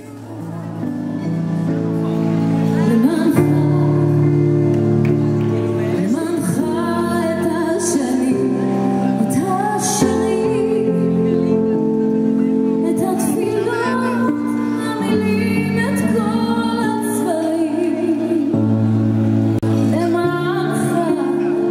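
A woman singing live into a handheld microphone over long held accompaniment chords. The music fades in over the first couple of seconds.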